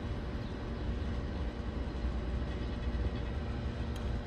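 Steady low background rumble with a faint, even hum.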